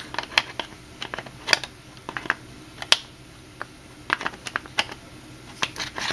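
Irregular sharp clicks and taps as unboxed airsoft pistol parts and packaging are handled.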